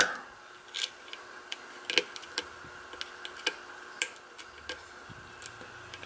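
Small irregular metallic clicks and ticks from a steel hook pick lifting the pins inside the cylinder of a seven-pin brass padlock during single-pin picking, about a dozen over the six seconds.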